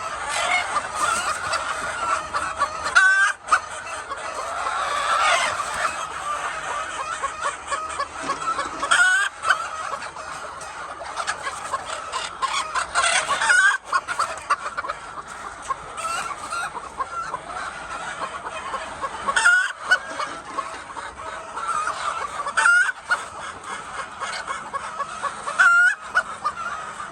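A flock of hens clucking and squawking together in a dense, continuous chatter.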